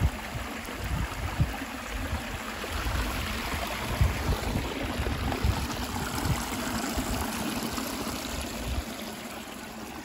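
Small waterfall splashing and rushing steadily, with irregular low rumbles underneath.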